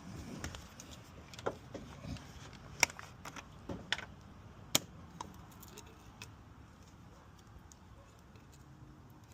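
A scatter of light clicks and taps, busiest in the first five seconds with two sharper clicks around three and five seconds in, as the engine's oil filler cap and motor oil bottles are handled to start filling the engine.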